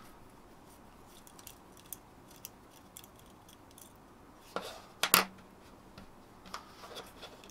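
Small clicks and taps of fingers handling the parts of a DJI Air Unit module, its metal case and circuit board, with a few louder sharp clacks close together about five seconds in.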